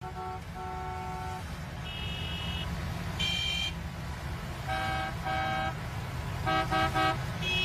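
Several different car horns honking in turn, about eight honks: single blasts at different pitches, with three quick beeps near the end. A steady low rumble runs underneath.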